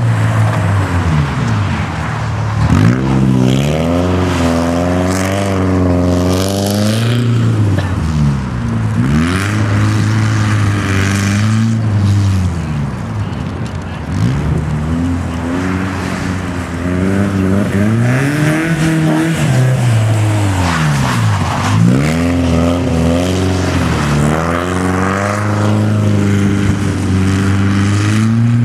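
BMW E30 318is rally car's 1.8-litre four-cylinder engine, driven hard: it revs up and drops back again and again as the car accelerates and lifts around a tight stage.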